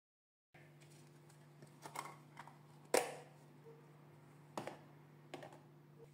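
A metal spoon knocking and scraping against a plastic mixing bowl and a plastic margarine tub while margarine is spooned in, a few light clicks and knocks with the sharpest about three seconds in. A low steady hum lies underneath, and the sound starts about half a second in.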